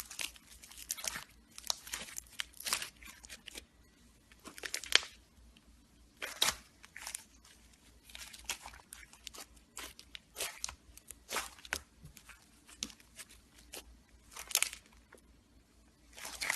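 Slime being squeezed and pressed by hand, giving irregular crackling and popping in quick clusters.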